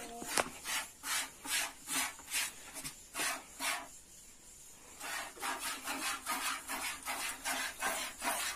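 Cow being milked by hand: a rhythmic hiss of milk squirting into a small pail with each squeeze, about two squirts a second, then after a short pause about four seconds in, a quicker run of about three a second.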